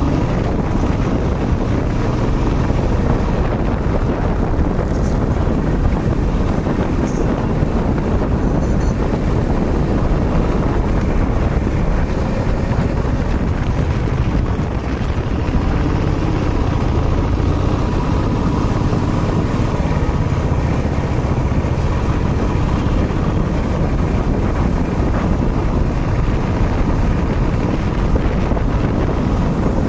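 Motorcycle running at road speed, heard from on the bike, with wind buffeting the microphone. The sound is a loud, steady rush.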